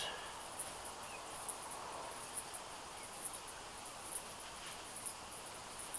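An insect chirping outdoors in short, high-pitched pulses about once a second, evenly spaced, over a faint steady background hiss.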